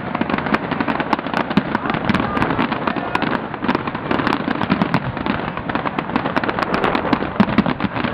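Fireworks display in full swing: a dense, continuous barrage of bangs and crackles from bursting shells, many per second with no pause.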